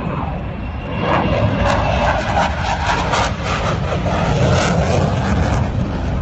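Fighter jet flying overhead. Its engine noise is a broad rumbling rush that grows louder about a second in and stays loud.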